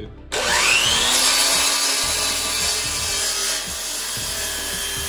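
DeWalt sliding miter saw switched on, its motor whine rising quickly as the blade spins up, then cross-cutting a wooden board with a loud rasping cut for about three seconds. After the cut the saw runs on more quietly with the blade free.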